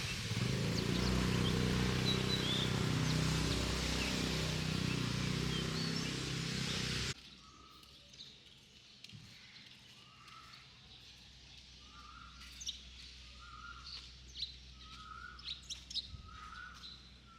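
A motor runs with a loud, steady noise and a low hum, then cuts off abruptly about seven seconds in. After it, a bird calls over and over: a short, slightly rising note about once a second, with scattered faint clicks.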